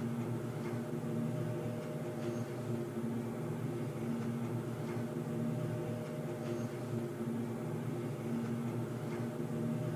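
Underground ambience sound effect: a steady low droning hum with several held tones, and a faint high ping twice, about four seconds apart.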